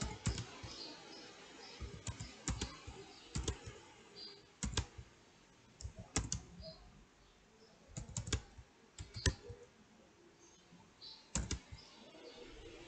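Typing on a computer keyboard: keystrokes come in short, irregular clusters with pauses between them, including a longer pause near the end.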